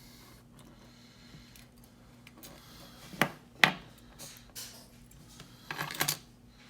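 Sharp clicks and clinks of small metal lock parts being handled as a pin-tumbler lock cylinder is taken apart: two clicks about half a second apart a little after three seconds in, then a short cluster of clicks near the end.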